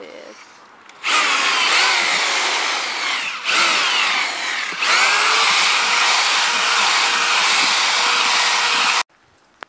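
Handheld electric paddle mixer churning a sawdust mix in a plastic bucket, its motor whining with shifting pitch. It starts about a second in, eases off briefly twice, and cuts off sharply near the end.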